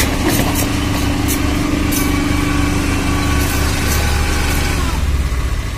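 Tata Ace mini truck's engine running steadily, easing off near the end.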